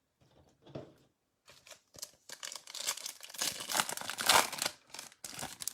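A foil trading card pack being torn open, its wrapper crinkling and crackling most strongly in the second half.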